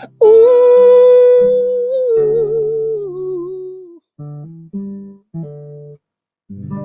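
A male voice holds one long wordless note over acoustic guitar chords, sliding slowly down with a wobble near the end of the note, then three short strummed guitar chords and a last one near the end, closing a soul ballad.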